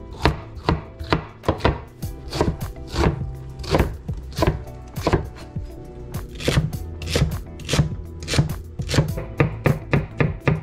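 Chef's knife chopping vegetables on a wooden cutting board: a steady run of sharp knife strikes against the board, about two a second, coming faster near the end.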